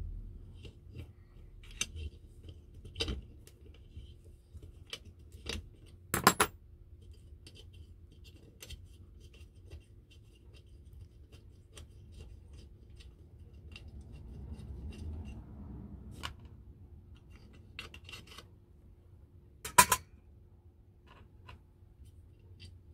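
Small spanner clicking and scraping on nuts inside the metal base of a vintage Salter milk scale as its mechanism is undone, with scattered light metal clinks and two louder metallic clanks, about six seconds in and near the end.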